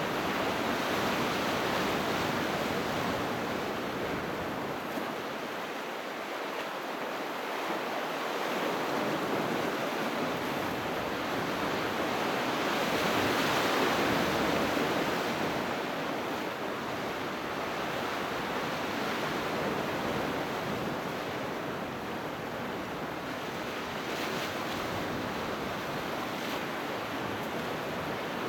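Sea surf: waves washing onto the shore in a continuous rush that swells and eases slowly, loudest about halfway through.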